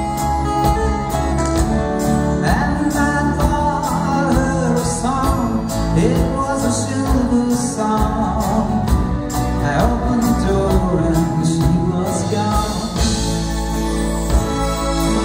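A live band playing a song with acoustic and electric guitars, keyboard and a steady drum beat, with a man singing lead vocals.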